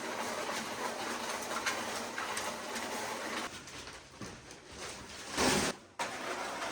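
Electric mud mixer running and churning a batch of concrete, a steady mechanical rumble and slosh. About five and a half seconds in there is a brief louder rush that stops abruptly.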